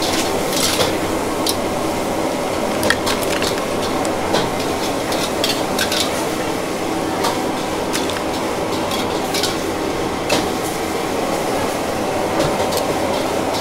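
Dishes and utensils clattering and clinking in quick, scattered knocks over a steady background din.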